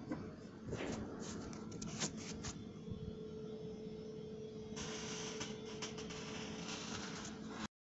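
Steady electrical hum, with a cluster of clicks and knocks about a second in and a hiss that starts about five seconds in; the sound cuts off suddenly near the end.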